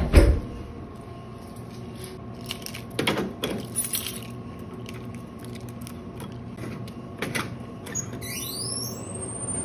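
Keys jangling and metal clicking as a vending machine's T-handle lock is unlocked and the handle turned, with a thump at the start and a steady hum underneath. A high squeak rises in pitch near the end.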